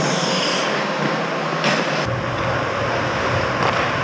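Ice rink ambience heard on an action camera's microphone: a steady wash of arena noise, with a brief hiss near the start and a sharp knock about two seconds in. A low rumble comes in at about the same point and carries on.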